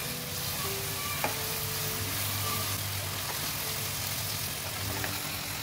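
Onion, tomato and coriander-paste masala sizzling as it fries in a nonstick pan while a spatula stirs it: a steady frying hiss, with one light click about a second in.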